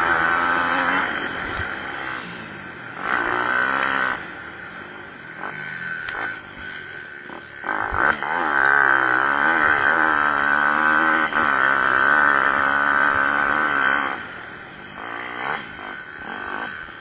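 Pit bike engines revving up and down as the bikes race past, the pitch climbing and dropping through gear changes. They are loudest from about eight to fourteen seconds in.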